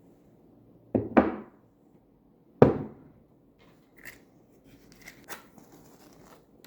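Objects being handled: a double knock about a second in, a louder single knock a little later, then light clicks and rustling.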